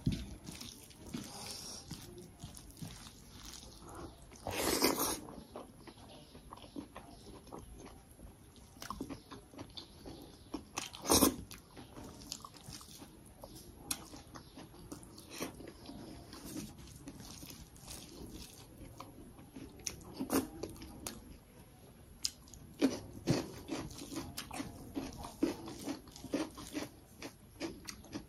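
Close-up eating sounds of someone eating rice and chicken curry by hand: chewing and lip smacks with many small clicks, and a louder crunch about five seconds in and another about eleven seconds in.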